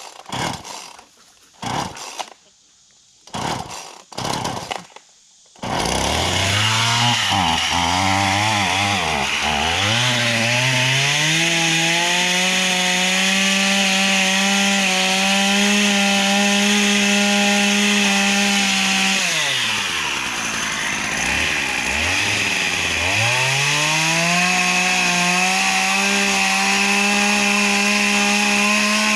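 Chainsaw cutting boards to rough length. A few short clattering sounds come first, then the saw starts about six seconds in and revs up to a steady high speed. It falls back to idle about twenty seconds in and revs up again for another cut.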